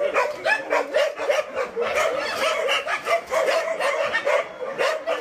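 Several shelter dogs barking and yipping at once in a dense, unbroken chorus.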